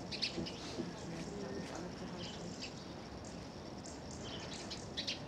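Faint murmur of visitors' voices, with short high chirps several times: about a second in, a few more over the following seconds, and a cluster just before the end.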